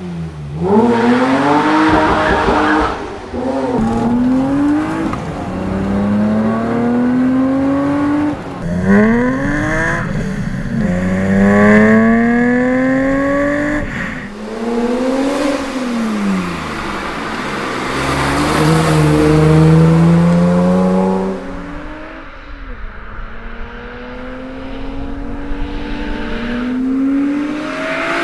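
BMW E30 327i's 2.7-litre straight-six, breathing through an HL Motorsport cat-back exhaust, revving up again and again as it accelerates through the gears. The pitch climbs steeply and falls back at each shift, and now and then the car drives past.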